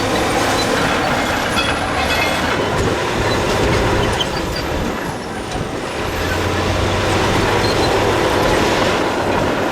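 Diesel engines of heavy earthmoving machinery, a bulldozer and dump trucks, running steadily with a low hum under a noisy rattle. The hum eases briefly about five seconds in, then picks up again.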